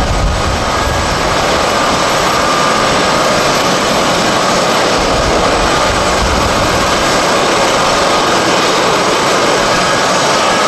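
Boeing C-17 Globemaster III's Pratt & Whitney F117 turbofan engines running as the jet taxis close past: a steady, loud rush of jet noise with a high whine through it.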